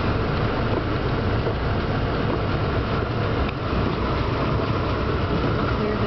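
Steady car-cabin driving noise: an even low rumble of engine and tyres with a rushing hiss over it.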